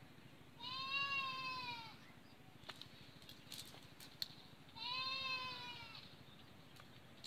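An animal calls twice, each a drawn-out call of about a second and a half, rising slightly then falling in pitch, with a few seconds between them.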